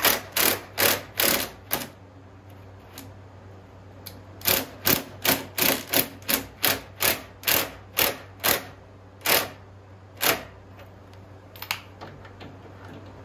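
Sharp clicks from hand-tool work on a small 49cc engine, about three a second. They come in two runs with a pause between, then two slower clicks near the end.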